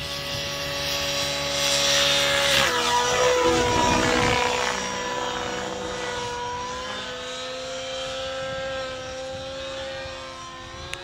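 OS 91 HZ two-stroke nitro engine of an RC helicopter in flight, a steady high engine note with rotor rush. It grows louder for a couple of seconds about two seconds in as the helicopter passes close, and the pitch drops slightly about three seconds in.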